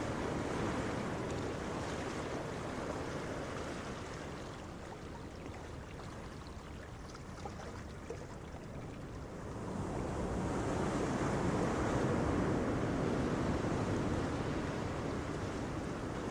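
Ambient sound-effect track of rushing surf, an unbroken noisy wash that eases off through the middle and swells louder again about ten seconds in.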